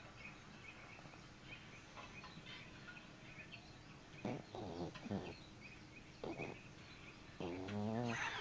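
A sleeping dog snoring: a few short snores in the middle, then a longer, louder snore with a rattling flutter near the end.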